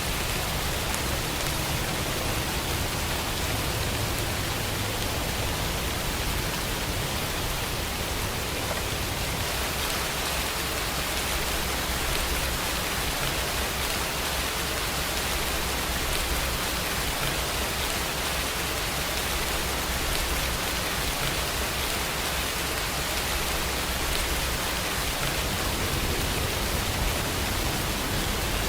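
Steady rain falling: a dense, even hiss with a low rumble underneath.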